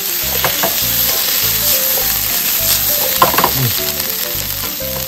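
Sliced madake bamboo shoots sizzling in sesame oil in a frying pan as they are tossed and stirred with chopsticks. There is a clatter of strokes about half a second in, and a louder clatter a little after three seconds.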